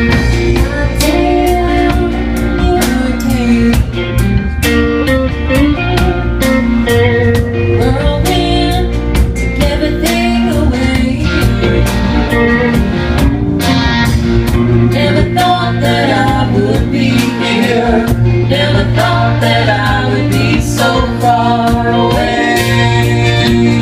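A rock band playing a song: guitar over bass and drums, with a steady beat.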